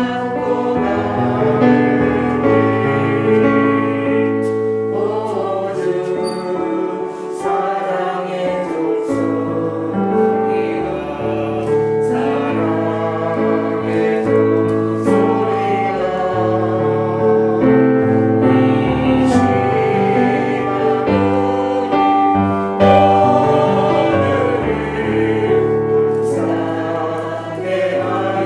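A church small-group choir singing a hymn together, with held low notes of accompaniment under the voices.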